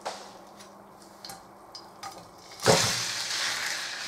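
Diced raw chicken thigh hitting hot oil in a wok. After a few light clicks it suddenly starts to sizzle about two-thirds of the way in, and the sizzle carries on steadily.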